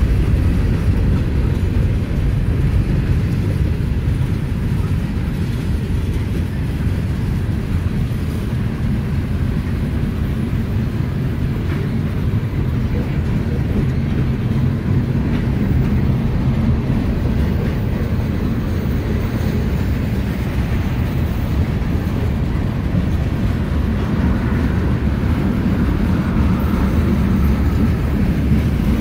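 A mixed freight train's cars rolling past at trackside: coal hoppers, covered hoppers and tank cars. Steel wheels on the rails make a steady, unbroken low rumble.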